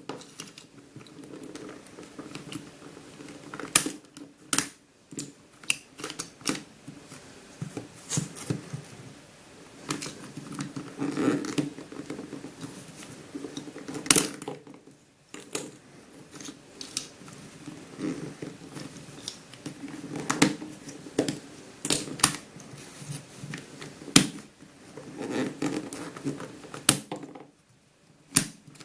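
Plastic pieces of a Curvy Dino twisty puzzle being worked apart by hand: continual small clicks, scrapes and rattles of plastic, with several sharp snaps as pieces come loose.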